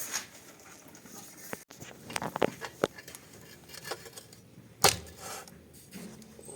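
Scattered light clicks and knocks of metal parts and tools being handled, with one louder knock about five seconds in.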